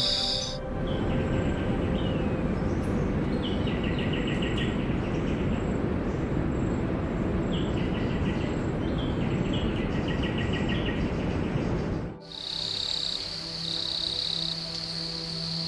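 Outdoor nature ambience: a steady rushing background with a small bird repeatedly singing short, quick trilled phrases. About twelve seconds in, it cuts abruptly to a steady, high, pulsing insect chirring over soft music.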